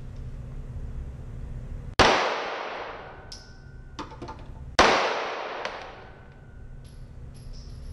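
Two pistol shots about three seconds apart, each a sharp crack followed by a long echoing decay in the enclosed indoor range, with a few faint clicks between them.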